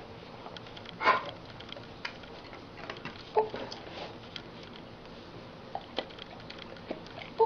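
Dogs close to the microphone making small mouth and nose sounds: sniffs, lip smacks and scattered light clicks, with a couple of short squeaks, one about a second in and one about three and a half seconds in.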